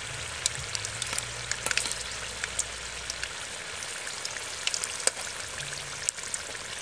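Giant spiders deep-frying in hot oil in a wok, a steady sizzle dotted with frequent sharp crackles and pops.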